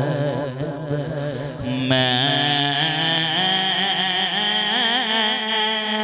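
A man's voice chanting a naat into a microphone, drawing out long held notes whose pitch wavers; a new sustained phrase begins about two seconds in.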